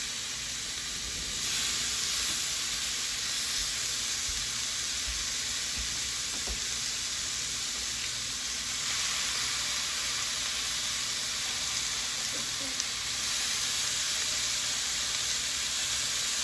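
Thin beef strips sizzling in a hot electric skillet, a steady frying hiss that grows louder about a second and a half in and again around nine seconds as more raw strips are laid into the pan.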